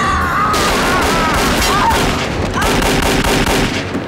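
Gunfight with revolver shots: many gunshots in rapid, overlapping succession that stop shortly before the end.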